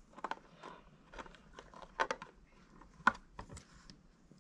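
Light clicks and taps of a small plastic part being handled and fitted by hand onto a small RC crawler's body, with two sharper clicks about two and three seconds in.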